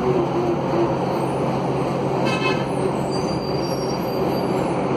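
Scania DC09 five-cylinder diesel of a city bus running steadily under way, heard from inside the passenger cabin with road noise. About halfway through there is a short horn-like toot.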